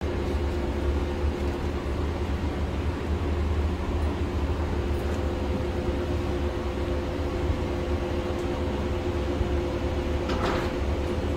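Steady low rumble and drone with a constant hum, from the machinery of a parked airliner and its boarding bridge, heard at the aircraft door. A brief noise near the end.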